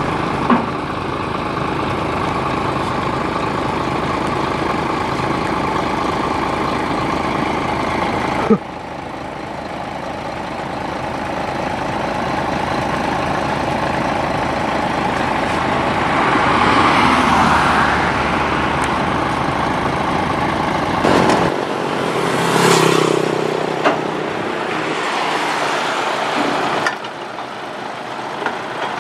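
Heavy truck's diesel engine running at a standstill, with passing road traffic swelling up and fading now and then. The sound changes abruptly a few times where the footage is cut.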